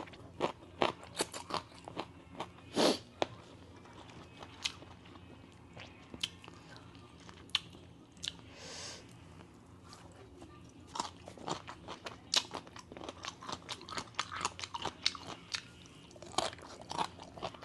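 Close-up crunching and chewing of Thai papaya salad (som tam) and raw vegetables, in irregular crisp bites with pauses between.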